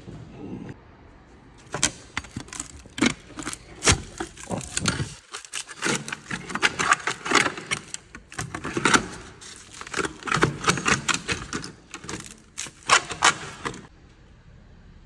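Quick, irregular metallic clattering and rattling in short runs, like loose metal parts being handled, with a brief pause about five seconds in.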